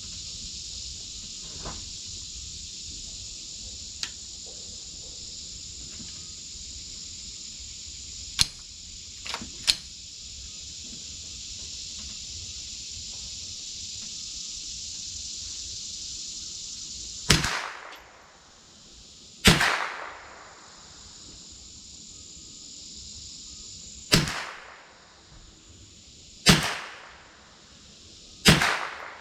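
Marlin Model 60 .22 rifle fired five times, a few seconds apart, in the second half. Each shot is a sharp crack with a short fading echo, and three shorter, sharper cracks come about eight to ten seconds in.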